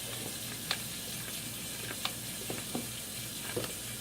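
A few light clicks and knocks from handling an electrical plug and cord at a wall socket, over a steady hiss.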